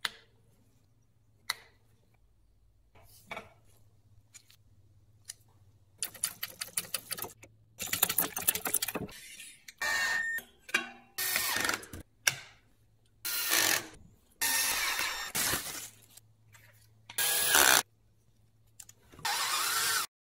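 Milwaukee cordless screwdriver running in about six short bursts of about a second each, driving the bolts that hold the bicycle fenders, some bursts with a steady motor whine. Before the bursts come scattered clicks and a fast series of clicks from handling tools and parts.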